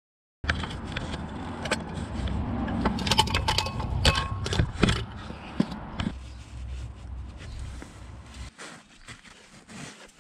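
Metal clinks, knocks and rattles as a clutch release bearing is worked off its fork lever inside the gearbox bell housing, over a low rumble. The knocking is densest in the first half and dies down from about six seconds in.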